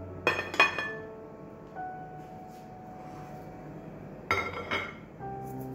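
Background music of gentle melodic notes, with two pairs of sharp ringing, chime-like strikes: one pair just after the start and one near the end.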